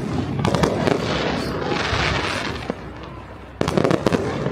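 Fireworks display: sharp bangs of shells bursting about half a second in and a quick cluster of bangs near the end, with crackling in between.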